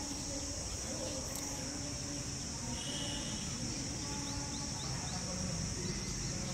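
Insects chirring steadily in a high, unbroken drone, with a few faint short chirps a little past the middle.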